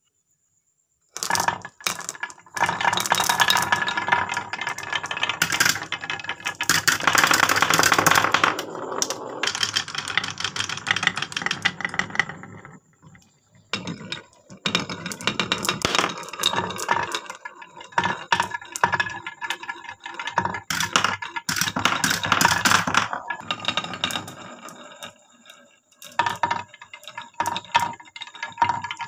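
Small balls rolling and clattering down wooden marble-run tracks: a dense, uneven rattle of balls knocking against the wood and each other. It starts about a second in and comes in bursts with short pauses.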